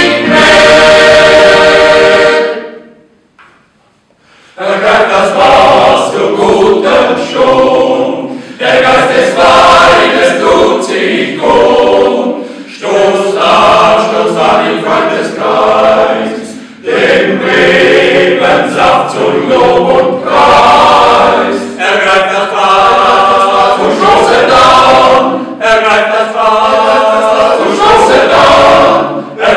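Men's choir singing. The singing stops about two and a half seconds in, and after a pause of about two seconds the choir starts again, unaccompanied.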